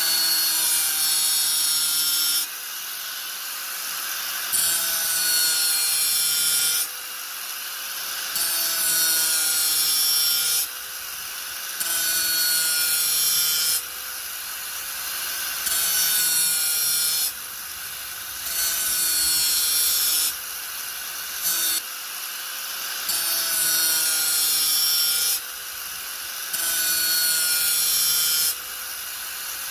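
Angle grinder running steadily and biting into the work in repeated passes, each about two seconds long with short breaks between. The loud grinding comes in over a steady motor whine roughly every three seconds.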